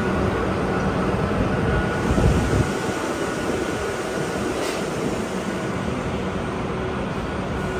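NSW 86 class electric locomotive 8649 standing with its equipment running: a steady hum and whine, with a brief low rumble about two seconds in.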